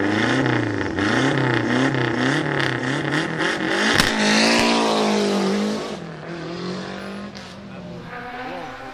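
Lancia Delta HF Integrale rally car's turbocharged four-cylinder engine revved over and over while standing, its pitch rising and falling about every 0.7 s. A single sharp bang about four seconds in, then the revs are held high for over a second before dropping back to a lower, quieter run.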